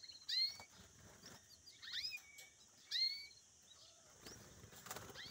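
Caged European goldfinches calling: a few short, separate calls, each a quick upward sweep into a brief held note, about a second or more apart.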